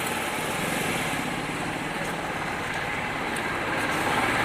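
A motor vehicle's engine running, growing gradually louder toward the end.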